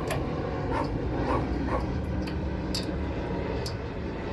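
A dog yelping three short times, followed by a few sharp metallic clicks over a steady low hum.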